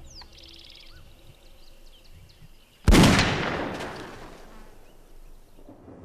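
A single gunshot about three seconds in, its echo dying away over a couple of seconds: a ranger putting down a lion sick with anthrax. Birds chirp faintly before the shot.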